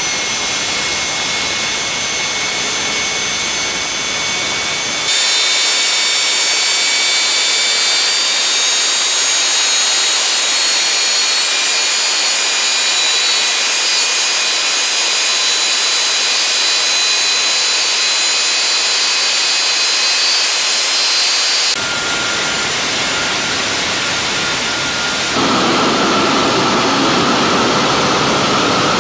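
Rolls-Royce Marine Spey gas turbine running steadily on a test stand: a loud rush of air with several steady, high-pitched whining tones over it. The sound changes abruptly a few times along the way, and in the last few seconds there is more low rumble and a lower whine.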